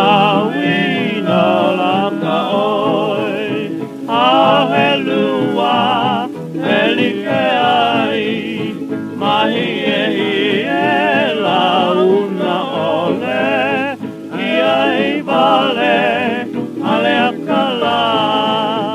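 Hawaiian band music from a 1930 78 rpm record: a wavering lead melody with heavy vibrato over a steady accompaniment, the sound cut off above the upper middle range as on old shellac recordings.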